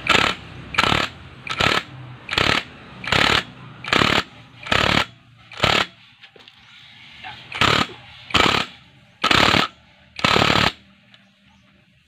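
Cordless impact driver with a socket running down the clutch centre nut in short trigger bursts, about one every 0.8 seconds. After eight bursts it pauses for about two seconds, gives four more, then stops.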